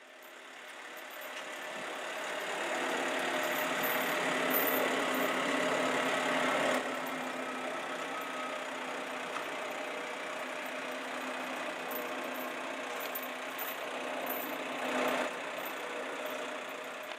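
Airbus Helicopters H225M Super Cougar's turbine engines running on the ship's flight deck with the rotor turning slowly: a steady mechanical drone that fades in over the first few seconds.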